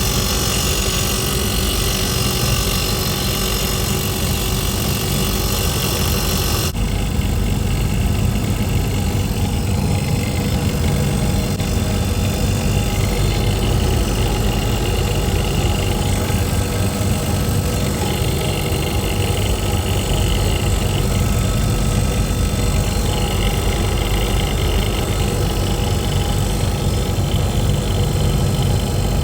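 A compressor running steadily and noisily, with a strong low hum and vibration. A high hiss over it cuts off suddenly about seven seconds in, and the machine keeps running.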